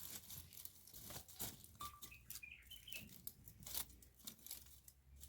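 Faint irregular crackles and light clicks, with a few faint bird chirps about two to three seconds in.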